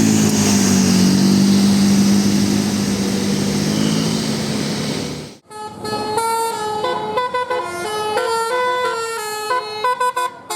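A large vehicle runs close by with loud engine and road noise and a low steady drone. About five seconds in, after a sudden cut, a bus's 'telolet' multi-tone horn plays a quick tune of short notes stepping up and down.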